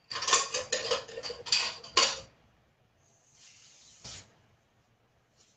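Kitchen handling noise: a quick run of clicks and knocks for about two seconds, then a short faint hiss and a single click.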